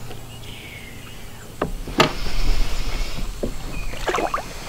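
A sharp knock on the boat about two seconds in, then low rumbling handling noise and a few water splashes near the end as a largemouth bass is let go over the side.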